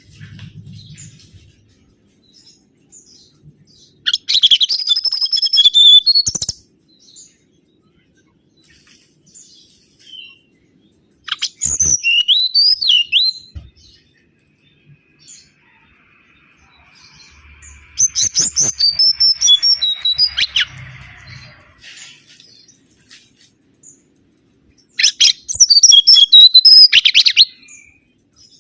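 Mangrove whistler singing: four phrases of rapid, high whistled notes, each two to three seconds long, separated by pauses of about five seconds.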